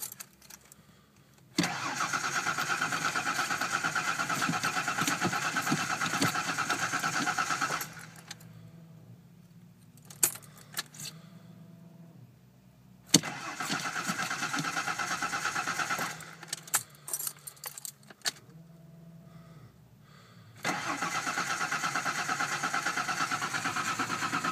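Starter cranking the 4.0 V6 of a 1989 Ford Bronco II in three long bursts. The engine turns over with an even rhythm but never catches: a cold no-start even though it has spark and fuel. Between the bursts come a few sharp clicks and a faint steady hum.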